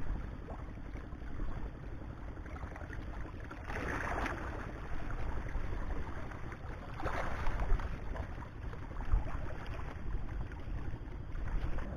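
Wind rumbling on the microphone over water washing against a rocky shore, with two brief louder washes about four and seven seconds in.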